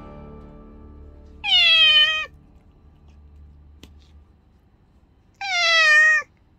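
Domestic cat meowing twice, two loud meows about four seconds apart, each under a second long and falling in pitch, over faint background music.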